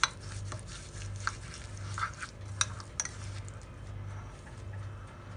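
Light kitchen handling sounds: a few sharp clicks of a utensil against a dish and brief scraping, over a low steady hum.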